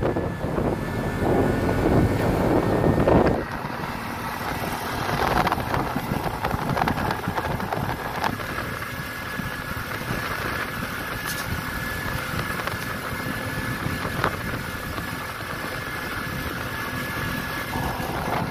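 Small engine of an auto-rickshaw (tuk-tuk) running steadily as it drives along a road, with road noise. Wind buffets the microphone for the first three seconds or so, then drops away.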